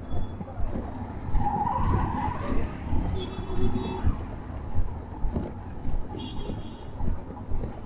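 Busy street traffic, with CNG auto-rickshaw engines running close by in a steady low rumble. Short high-pitched beeps come about three seconds in and again about six seconds in, over passers-by's voices.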